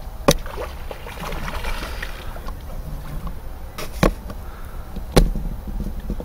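Wind rumbling on the microphone, broken by several short sharp splashes as a hooked trout thrashes at the surface.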